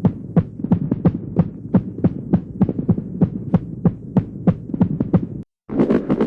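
Horror sound effect: a steady run of sharp knocks, about three a second, over a low hum. It stops briefly about five and a half seconds in, and a denser, faster pulsing effect starts.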